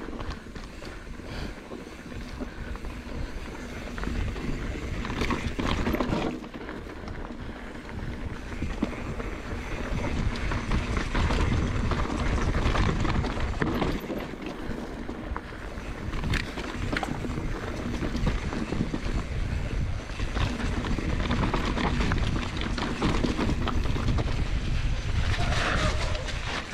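Wind rushing over the camera microphone during a fast mountain-bike descent, with tyre rumble on a rough dirt trail and knocks and rattles from the bike over bumps. The loudness rises and falls with the speed.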